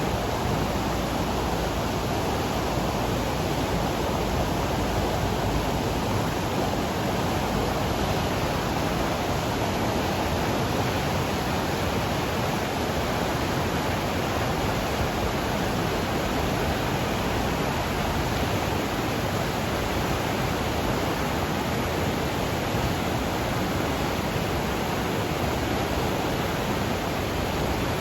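Flooded mountain river rushing at high flow, a steady, unbroken roar of water swollen with snowmelt runoff.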